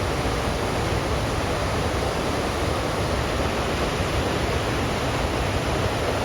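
Waterfall rushing steadily, a constant even roar of falling water.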